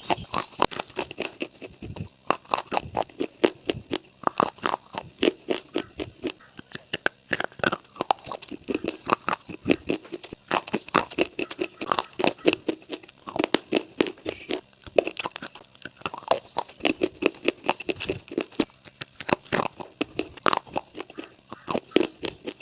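Crunchy eating: rapid, sharp crunches and bites, several a second, as something crisp is chewed and broken apart.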